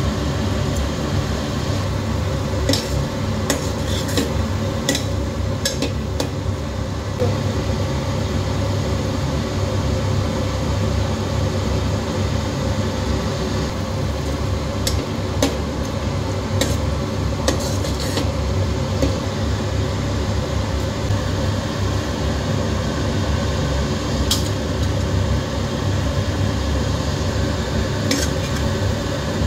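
Steel spoon stirring a thick masala in a metal pot, with scattered clinks and scrapes of the spoon against the pot, over a steady low hum.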